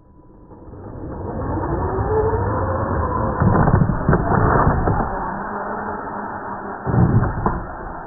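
Reely Eraser RC car accelerating away on asphalt, its electric motor whine rising in pitch over rushing drive and tyre noise, with louder surges about three and a half and seven seconds in. The audio is slowed down, so it sounds deep and muffled.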